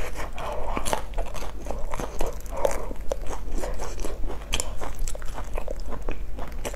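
Close-miked chewing of a mouthful of crumb-coated fried bun: many short, irregular crunches and mouth clicks.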